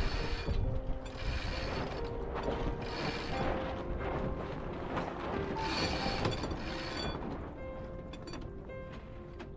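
Ratcheting deck hardware on a sailboat clicking in several bursts of about a second each, over steady tones of background music.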